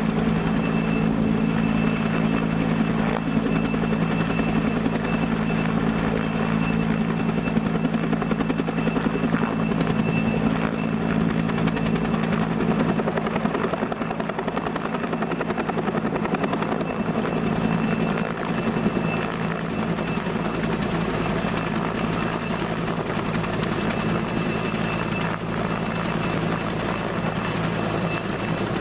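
Bell 205 (Huey) helicopter hovering overhead while lifting on a longline: a steady rotor and turbine sound with a thin high whine that comes and goes.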